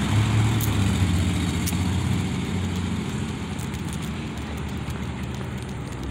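Road traffic: a motor vehicle's engine hum and road noise, steady and slowly fading.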